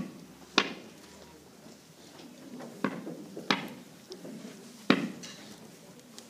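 Kava root being pounded with a stone on the mat: sharp knocks at uneven intervals, some loud and some softer, each ringing briefly in the hall.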